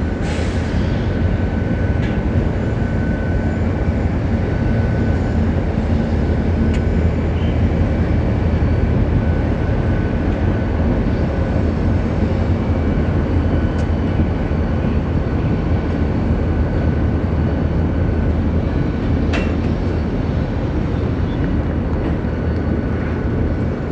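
Freight train's container well cars rolling steadily across an elevated steel viaduct: a continuous loud rumble of wheels on the bridge, with a faint high ringing tone that comes and goes and a single sharp click late on.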